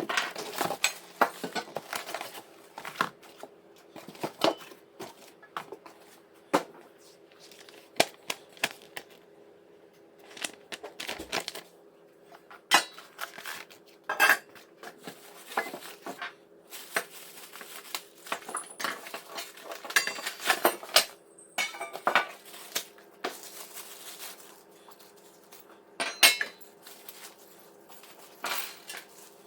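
Steel bracket parts of an under-desk PC case holder clinking and knocking as they are handled and fitted together, in irregular sharp metallic clanks over a faint steady hum.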